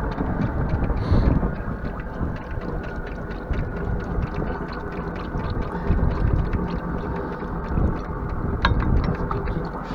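Wind buffeting the microphone in a snowstorm, a steady rumble with a faint low mechanical hum beneath it.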